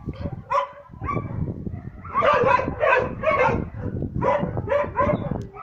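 A small dog yapping: high-pitched yaps in quick runs of about three a second, one run about two seconds in and another about four seconds in.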